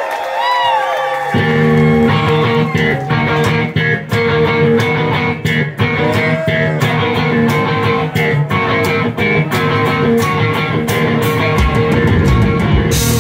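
Live rock band: an electric guitar opens with bent, gliding notes, then bass comes in about a second in and drums with cymbal strokes join soon after, the guitar carrying on over them.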